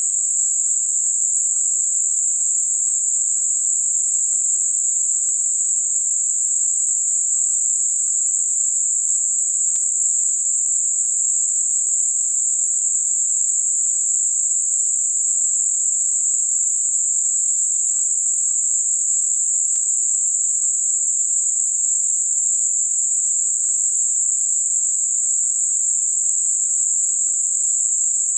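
Synthetic Gaussian narrowband noise centred at 7.5 kHz: a steady, high-pitched hiss with no low or deep part, unchanging in level, made as a masking sound for high-frequency tinnitus.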